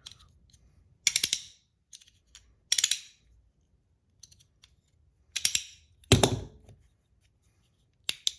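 Battle Master fidget slider (PEI body, aluminum parts) being worked by hand: bursts of rapid clacks as the magnet-held parts slide and snap. The loudest burst, about six seconds in, comes with a low thud.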